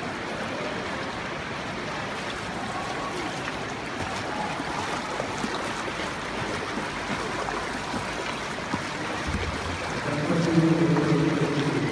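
Steady rushing and lapping of swimming-pool water. About ten seconds in, a short held pitched sound rises above it.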